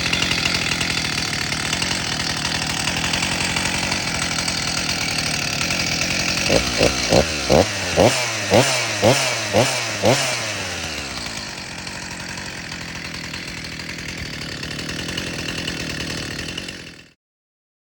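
Freshly rebuilt Stihl MS361 two-stroke chainsaw running, given about ten quick throttle blips in a row a third of the way in, then settling back to a steady run. The sound cuts off suddenly near the end.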